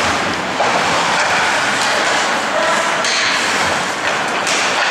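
Ice hockey game sounds: skate blades scraping the ice and several sharp knocks of sticks and puck, over a steady hiss of rink noise.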